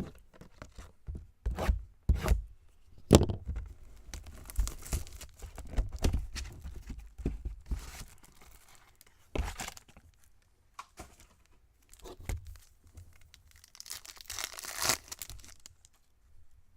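The last box of Topps Chrome baseball card packs is torn open: the wrappers rip and crinkle, with several sharp knocks in between and a longer rustle near the end.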